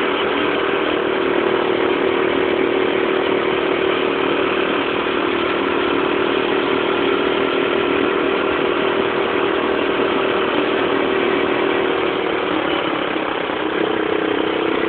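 Small engine of a mini motorcycle (pocket bike) running steadily as it is ridden, with a slight shift in pitch and a small dip in level about two seconds before the end.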